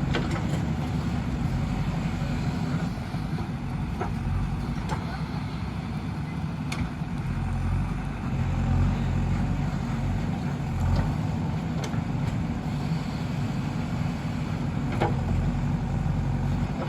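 Diesel engine of a JCB 3DX backhoe loader running steadily under work, with a few short knocks or clinks scattered through it.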